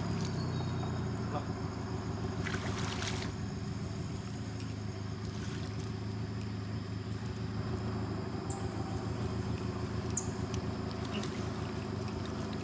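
Water splashing and dripping from a fishing net being hauled out of a river into a wooden boat, over the steady hum of an idling boat engine. A louder splash comes about two and a half seconds in.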